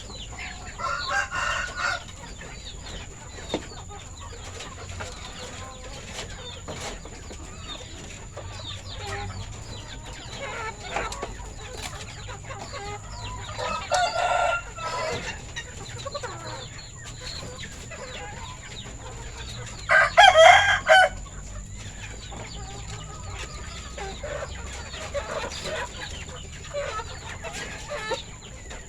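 Flock of village chickens clucking steadily, with a rooster crowing three times: near the start, about halfway through and, loudest, about two-thirds of the way in.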